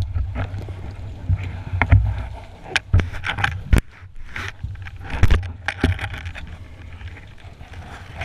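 Underwater sound picked up by the speargun-mounted camera as the diver swims: a muffled low rumble and rushing of water, broken by several sharp clicks and knocks, the loudest two about three and four seconds in.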